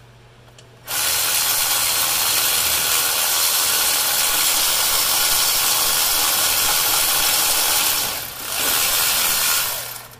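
Cordless power tool running, spinning out an alternator mounting bolt: a steady loud run of about seven seconds, a short break, then a second shorter run that stops near the end as the bolt comes free.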